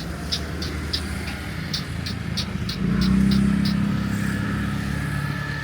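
A motor vehicle's engine running steady and low, growing louder about three seconds in as it passes close, over a run of short high chirps repeating about three times a second.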